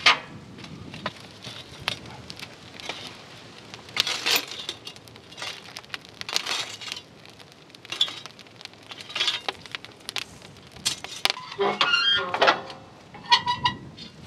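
Long metal poker scraping and knocking against burning logs and the steel firebox of a wood-fired offset smoker, in irregular clanks and scrapes. Near the end comes a metallic rattle, then a ringing clank as the firebox door is handled.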